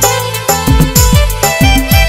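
Loud dance music with a fast, heavy beat of deep drum hits that slide down in pitch, about three a second.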